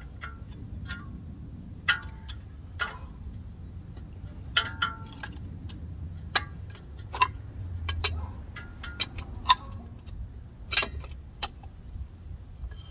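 Irregular metallic clicks and clinks of tools working on a Ford F-250's front brake caliper as the pads are compressed to push the caliper piston back. Some clinks ring briefly, over a low steady rumble.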